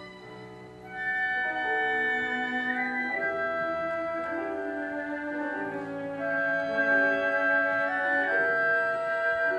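Symphony orchestra playing classical music: held chords that move slowly from note to note, growing louder about a second in.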